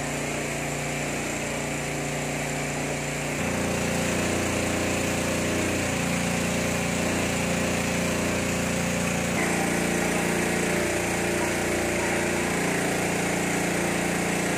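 Small petrol engine running steadily, most likely a brush cutter clearing grass. Its pitch and level change about three seconds in and again about nine seconds in.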